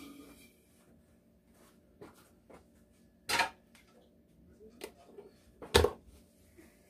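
A white plastic spoon knocking and scraping against a bowl as crema is spooned out onto a tortilla: a few scattered light clicks, with two louder knocks, the loudest near the end.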